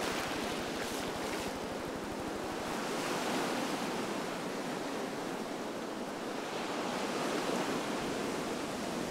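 Surf washing up the beach: a steady rush of breaking waves and foam sliding over the sand, swelling and easing slightly as the waves come in.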